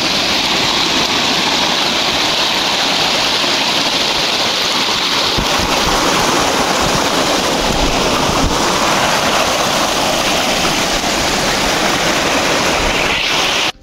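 Fast-flowing stream of glacial meltwater rushing over rocks: a loud, steady rush of water that cuts off suddenly at the end.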